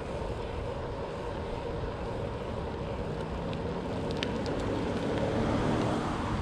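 Wind noise on the microphone and the steady rolling hum of a hybrid bicycle's Specialized Pathfinder tyres on a paved path, with a few faint clicks about halfway through.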